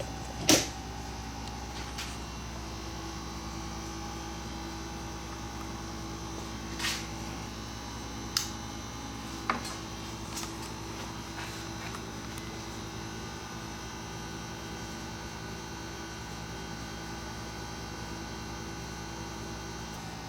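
Steady electrical hum, with a sharp click about half a second in and a few fainter clicks a little after the middle.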